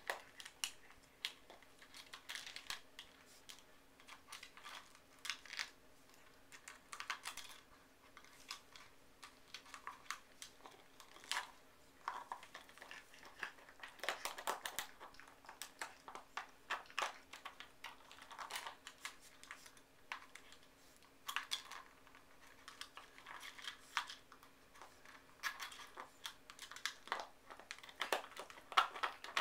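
Raccoon handling a plastic bottle of treats with her paws and teeth, working at its screw cap: irregular quiet clicks, taps and crinkles of the plastic. A faint steady hum sits underneath.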